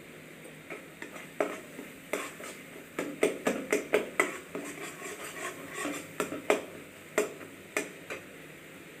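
A flat spatula stirring and scraping egg and tomato bhurji around a kadhai, with irregular knocks and scrapes against the pan, busiest in the middle and stopping shortly before the end.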